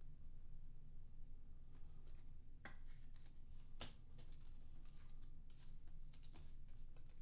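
Trading cards and card packs being handled: faint scattered clicks and rustles, the sharpest a little under 3 s and about 4 s in, over a steady low hum.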